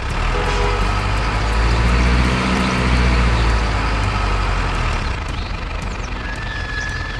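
A truck's engine running with a heavy low rumble that swells a couple of seconds in and then settles. A steady high tone sounds briefly near the end.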